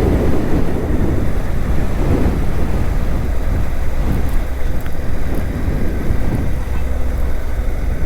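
Steady wind rush on the microphone over the low, even drone of a Suzuki V-Strom 800DE's parallel-twin engine as the motorcycle rides along.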